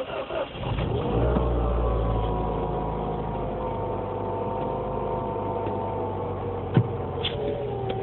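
A 2007 Mini Cooper S's four-cylinder engine is cranked and catches within about a second under part throttle. It then runs at a steady raised idle, with a sharp click a little before the end and the revs easing down slightly near the end. It is a cold restart just after a stall, a cold-weather stalling fault the dealer put down to condensation and ice in the throttle body housing.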